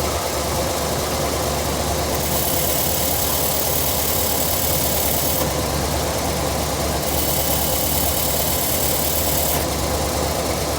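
C3 Corvette's V8 engine idling with a rattle, which the owner suspects is a worn clutch throwout bearing. A higher hiss comes in and drops out twice over the engine's steady drone.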